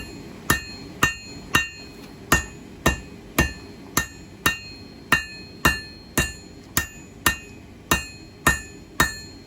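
Hand hammer striking hot 1084 high-carbon steel on an anvil while drawing down the point of a small knife blade: a steady rhythm of about two blows a second, each ringing briefly.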